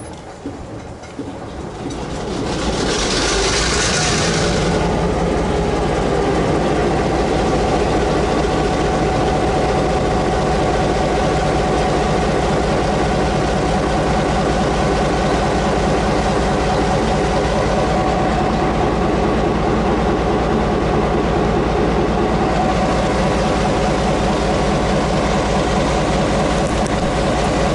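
EMD G12 diesel locomotive's engine starting about two seconds in, with a brief burst of hiss as it fires, then settling into a steady idle.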